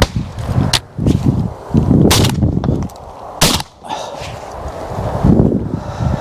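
Two shotgun shots about a second and a half apart, a double that brought down two woodpigeons, with lighter clicks and low wind rumble around them.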